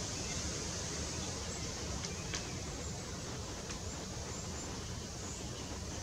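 Faint, short, high calls of small songbirds over a steady outdoor hiss, with a couple of sharp ticks two to four seconds in.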